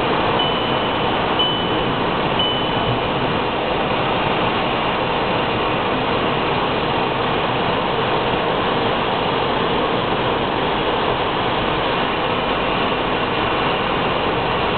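Steady road and tyre noise inside a car's cabin at motorway speed, the tyres hissing on wet asphalt. Three short high beeps sound about a second apart in the first few seconds.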